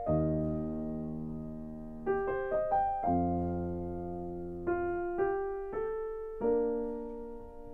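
Gentle solo piano music: short runs of rising notes, each settling into a held chord that slowly fades.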